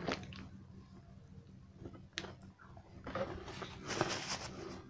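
Close-up chewing of a crunchy KitKat wafer bar: faint at first with a single click about two seconds in, then a stretch of crunchy chewing from about three seconds in.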